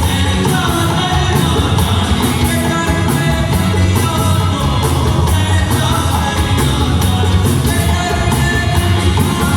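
Live band music with singing, drums keeping a steady beat.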